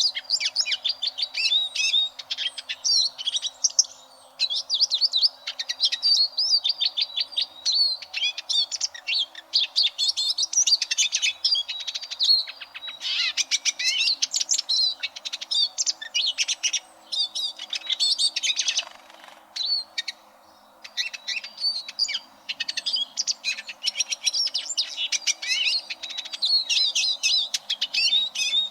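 Eurasian siskin singing: long, fast twittering phrases of high chirps and trills, broken by a short pause about four seconds in and a longer one about two-thirds of the way through.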